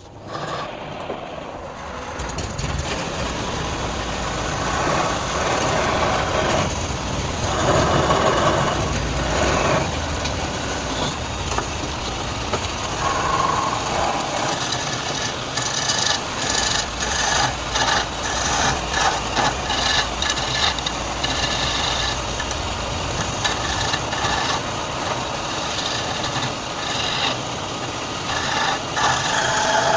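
Wood lathe running with a turning tool scraping and cutting the spinning wood, a steady motor hum under an uneven rasp. The sound builds up over the first two seconds.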